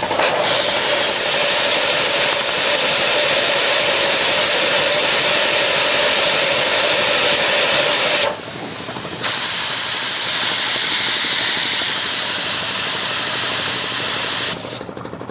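Compressed air hissing loudly out of a homemade propane-tank air compressor's tank, in two long blasts with a break of about a second about eight seconds in, cut off near the end.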